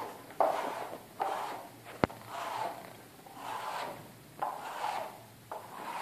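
Plasterer's float rubbed over a Hardwall plaster coat in short repeated strokes, about seven scraping swishes, with one sharp click about two seconds in.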